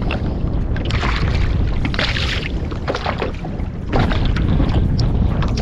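Wind rumbling on the microphone over lake water slapping the boat, with a short splash about two seconds in as a crappie is dropped back into the water.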